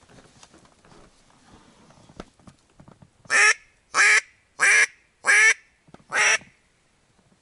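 A duck quacks five times in quick succession, each quack short, loud and close.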